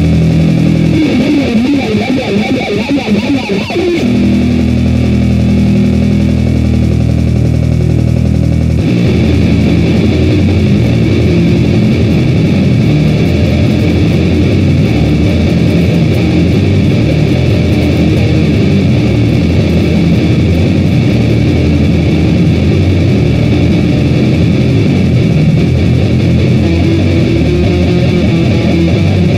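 A band's song led by guitar, played back from a voice-memo recording. It is loud throughout, and the arrangement changes about four seconds in and again about nine seconds in.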